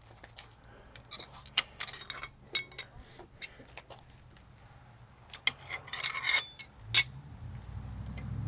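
Loose metal engine parts and bolts clinking and clicking as they are handled and set down, in scattered knocks with the loudest about seven seconds in. A low hum grows near the end.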